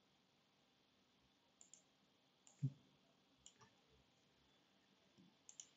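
Faint computer mouse clicks, several coming in quick pairs, the loudest about two and a half seconds in with a dull low knock.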